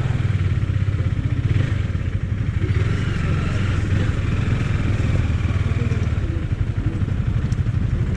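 Motorcycle engine running at low, steady revs, heard from on the bike itself as it rolls slowly along.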